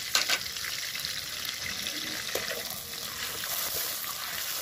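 Hot oil, butter and ghee sizzling with a steady hiss in a metal kadai, with two sharp taps just after the start and a flat spatula stirring the fat near the end.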